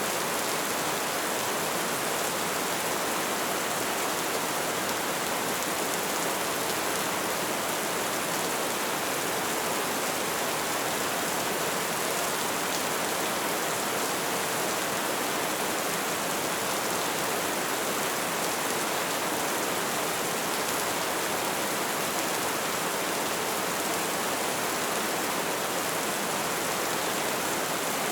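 Steady rain falling, an even hiss without pauses or single drops standing out.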